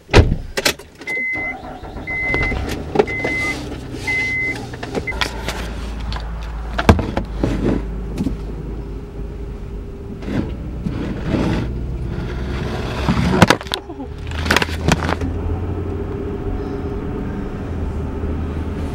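Inside a car: a thump, then a dashboard warning chime beeping four times about a second apart. The chime stops about five seconds in, when a steady low engine hum begins, and scattered knocks and clicks from the cabin follow as the car gets going.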